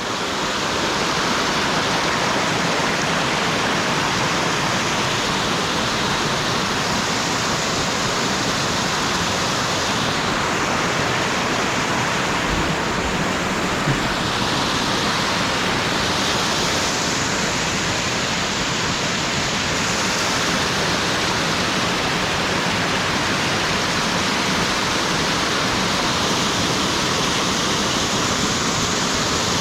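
Waterfall rushing: a loud, even roar of falling water with no break.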